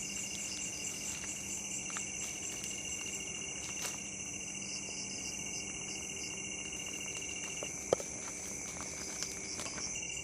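A chorus of night insects trilling steadily in high, fast-pulsing tones. One of the trills stops about three-quarters of the way through and starts again near the end. A single sharp click comes about eight seconds in.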